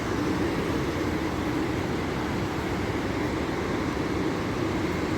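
Steady roar of a waterfall and the river below it, an even rushing noise with no breaks.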